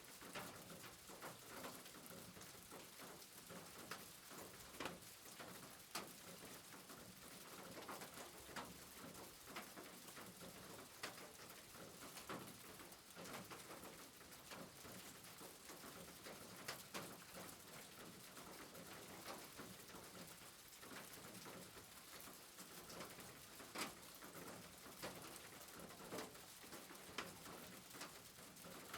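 Faint steady rain, with irregular drops tapping sharply on a surface.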